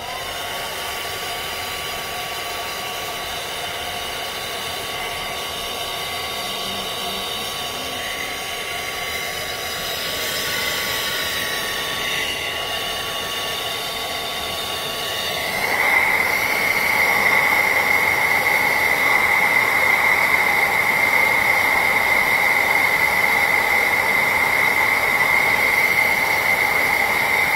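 Small pink handheld hair dryer running steadily, a rushing blow with a whine. About halfway through it gets louder with a sharper high whine, and it cuts off right at the end.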